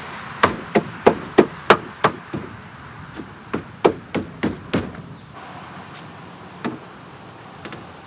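Sharp knocks at about three a second, from a hand striking a pickup's new door window glass to seat it down into its track. The knocks come in a run of about seven, then four more after a short pause, with a single knock later on.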